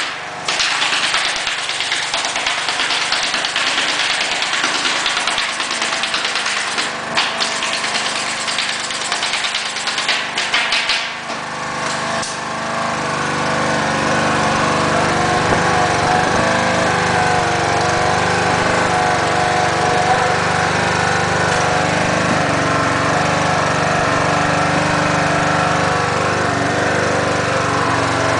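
Pneumatic stapler firing staples into wire lath on a wooden subfloor: a few sharp snaps over a hiss, several in quick succession about ten seconds in. About twelve seconds in, the air compressor feeding it starts and then runs steadily.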